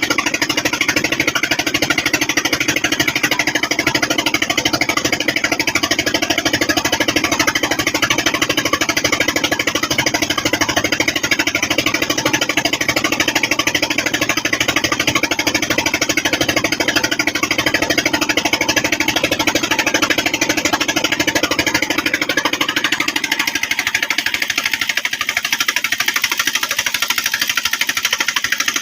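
A river boat's engine running with a rapid, even knocking beat. About three quarters of the way through, its lower tone drops away.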